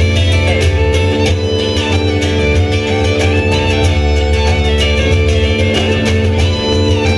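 Live folk band playing an instrumental break with no singing: uilleann pipes sounding a tune over steady held drone notes, backed by a strummed mandolin-family instrument and upright double bass keeping a regular beat.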